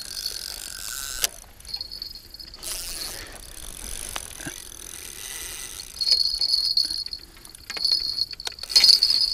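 Crickets chirring steadily in the background, with short clicks and clatters as fishing rods and reels are handled while two hooked fish are being played.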